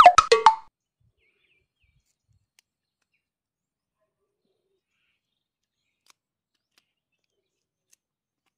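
A brief, loud whistle-like chirp that glides upward and breaks into a few quick notes within the first half second, then silence.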